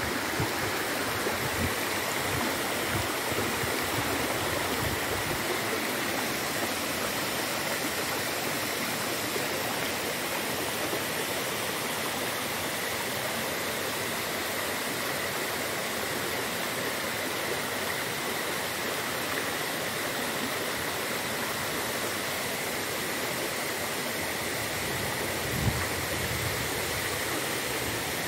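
Steady rush of running water, with a few soft low bumps early on and a short thump near the end.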